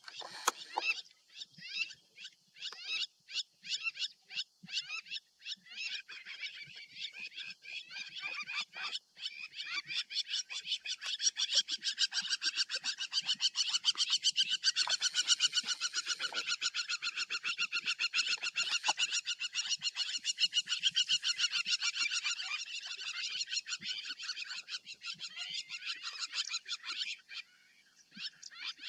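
A dense chorus of rapid, high chirping calls from many small animals, thickening about ten seconds in and thinning out near the end.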